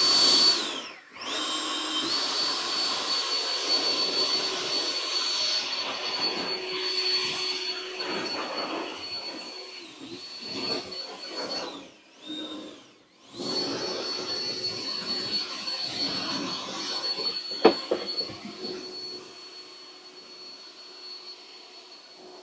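Kress 60 V cordless brushless leaf blower running with a steady high fan whine. It cuts out and spins back up about a second in and again about halfway, and there is one sharp knock late on.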